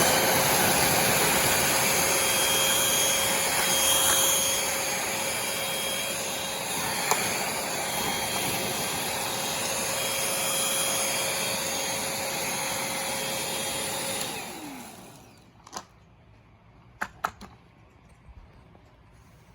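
Bissell Featherweight stick vacuum running with a steady motor whine and airflow hiss for about fourteen seconds, then switched off, its motor winding down with a falling pitch. A few light clicks follow.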